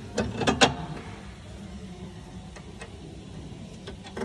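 A quick cluster of sharp metallic clicks and clinks, then a few faint single clicks later: hand tools and the nut being worked onto the stud of a new front drop link.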